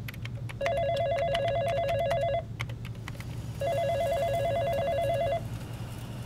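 Electronic desk telephone ringing twice, each ring a rapid warbling trill lasting about two seconds, about a second apart. Scattered clicks of keyboard typing sound around the rings over a steady low hum.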